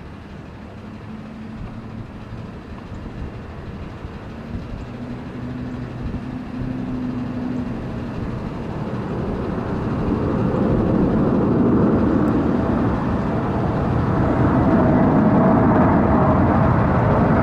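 Jet engines of a four-engined Boeing 747 on landing approach with gear down. It starts as a low rumble with a faint steady tone, grows steadily louder as the jet nears, and turns into loud jet noise from about ten seconds in.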